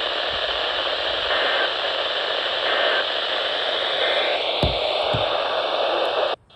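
Steady hiss of radio static from a weather radio receiver tuned to 162.400 MHz, with no voice on the channel. It cuts off abruptly near the end.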